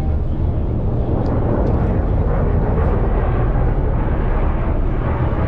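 Aircraft engine rumbling steadily as a plane flies a display pass overhead.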